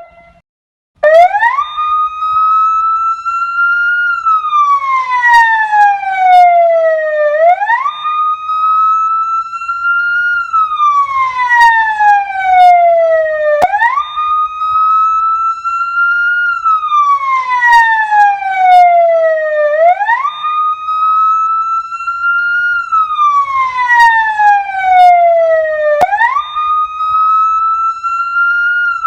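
Ambulance siren wailing about a second in and repeating in a slow cycle roughly every six seconds: a quick rise in pitch, then a long slow fall.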